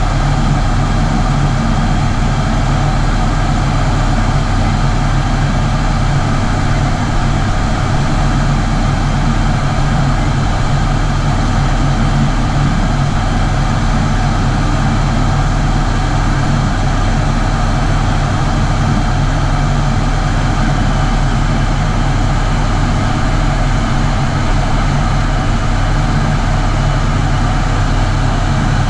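Steady drone of an ATR 72-600's twin turboprop engines and propellers inside the cockpit: constant low hum tones under an even rushing hiss of airflow.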